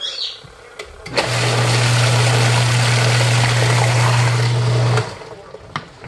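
Wash motor of a HomHum twin-tub portable washing machine running with its wash tub empty: a loud, steady low hum over a rushing noise. It switches on suddenly about a second in and cuts off about a second before the end.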